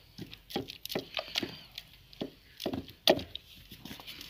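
Wooden stirring stick knocking and scraping inside a metal pot of thick mustard-greens saag as maize flour is worked in: a run of irregular knocks, the loudest about three seconds in.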